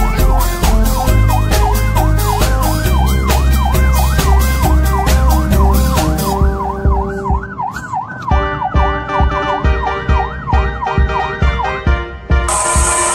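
Fast rising-and-falling yelp siren over music with a steady beat. The siren stops about eight seconds in while the music carries on, turning brighter near the end.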